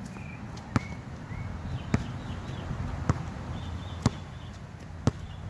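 Basketball bouncing on an outdoor hard court, dribbled slowly: five sharp bounces about a second apart.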